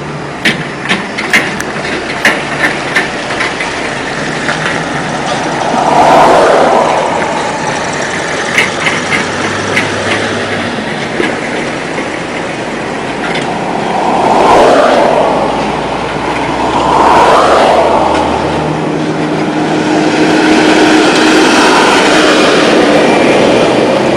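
Road traffic: vehicles pass one after another over a steady rush of road noise, each swelling up and fading away. There is a run of sharp clicks in the first three seconds and again about nine seconds in.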